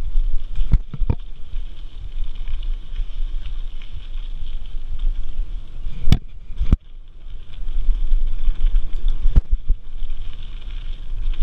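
Mountain bike rolling fast down a dirt singletrack, with wind rumbling on the microphone and several sharp knocks and rattles from the bike over trail bumps: two about a second in, a louder pair about six seconds in, and one more near the end.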